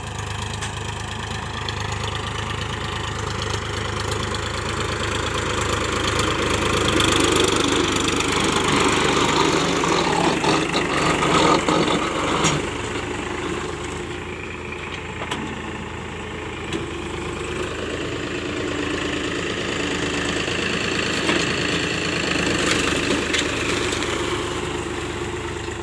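Powertrac Euro 50 tractor running with its brakes grating loudly, getting louder towards the middle and easing off later. The owner puts the noise down to water in the brake oil.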